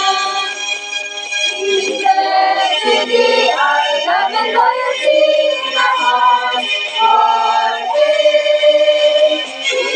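A group of young women singing a school hymn together in held, sustained phrases, reaching the line "We pledge to thee our love and loyalty in our hearts for aye."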